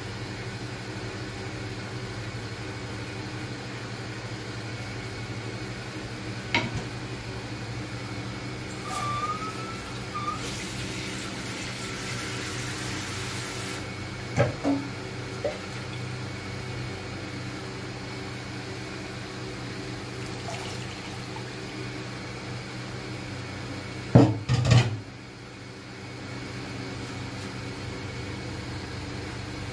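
Steady mechanical hum of a kitchen appliance or fan over a pot of dal cooking on a gas stove. A few seconds of hiss come about a third of the way in, and there are a few sharp knocks, the loudest a quick cluster near the end.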